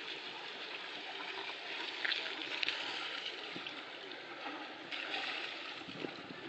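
Steady rush of water churned beside a slowly motoring sailing yacht, mixed with wind noise, with a couple of light knocks about two seconds in.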